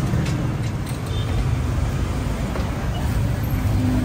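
Busy street traffic: a steady low rumble of car and motorbike engines running and passing close by.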